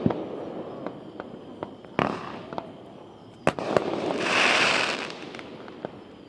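Aerial fireworks going off. There are sharp bangs about two seconds in and again a second and a half later, then about a second of crackling, with scattered smaller pops throughout.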